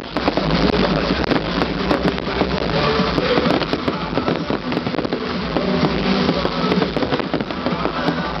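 Fireworks crackling and popping in rapid, dense succession, with music playing underneath.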